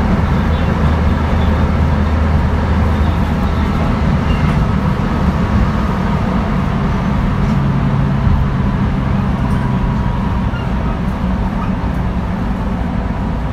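Running sound of a JR West 223 series 1000 subseries electric train with its Hitachi first-generation IGBT inverter: a steady rumble of wheels on the rails with low, even hums from the traction equipment.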